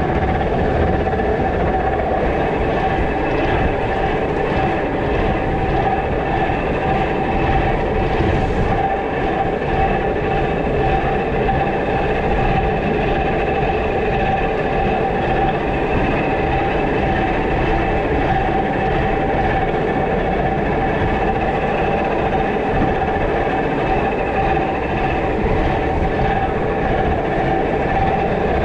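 Fishing boat's engine and geared deck winch running steadily as they haul in the net rope, with a constant whining tone over the engine's rumble.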